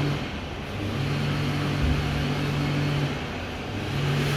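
A steady mechanical hum over even background noise, holding one low tone that drops out briefly twice.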